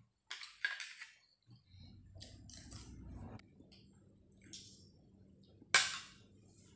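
Metal fork and spoon clinking and scraping against a metal food tray: several sharp clinks, the loudest about two-thirds of the way through, over a faint low hum.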